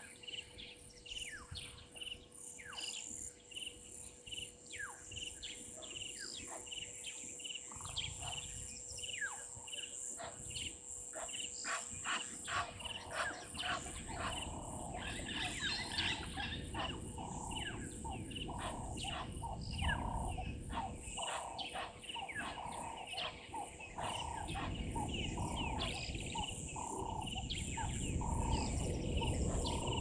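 A wild bird and insect chorus: many birds call with short, repeated downward-sweeping whistles and chirps over a steady high insect trill. A low rushing noise grows louder in the second half.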